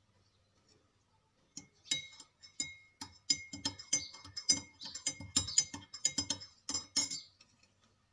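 Hard kitchenware being handled: a quick, irregular run of clinks and knocks, some leaving a brief ringing, starting about a second and a half in and stopping shortly before the end.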